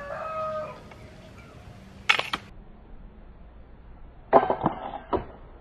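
Homemade rubber-band speargun fired: one sharp snap about two seconds in as the bands release the spear. Near the end comes a short cluster of knocks and rustles ending in a click.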